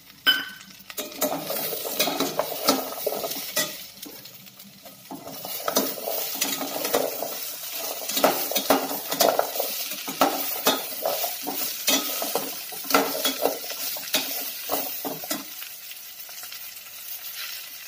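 A perforated steel spoon stirring and scraping chopped vegetables around a stainless steel pot, with a light sizzle of the vegetables frying in oil. Quick scrapes and clinks come one after another, easing off about four seconds in and again near the end.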